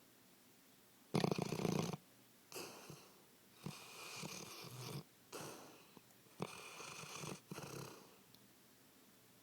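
Dog snoring in its sleep: a run of about six snoring breaths, each about half a second to a second long, the first the loudest.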